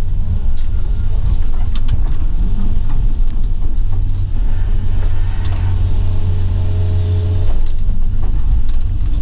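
Excavator's diesel engine running steadily under load, a heavy low drone, with a few brief knocks.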